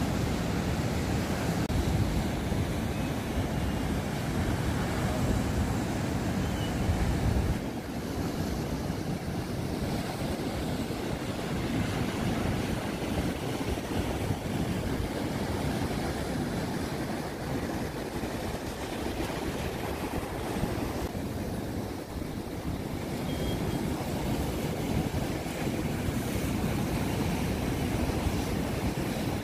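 Waves breaking and washing through an inland surf lake, a steady rushing noise, with wind buffeting the microphone.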